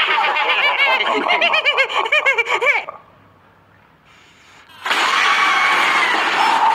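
Laughter for about three seconds, the pitch bouncing up and down. After a short lull, a loud hissing sound effect with a held, steady tone starts about five seconds in.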